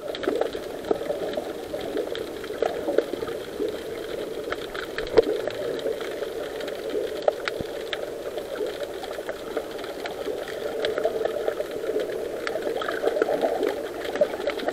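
Muffled underwater sound picked up through an action camera's waterproof housing: a steady churning murmur with scattered faint clicks and crackles.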